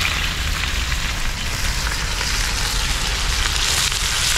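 Sliced onions sizzling steadily in hot coconut oil, just dropped into the pan on top of mustard seeds.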